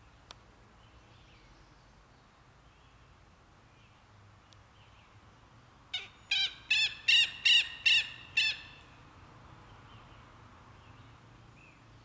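Southern lapwing (Vanellus chilensis) calling: a quick series of about seven loud calls over some two and a half seconds, about halfway through, the first one quieter than the rest.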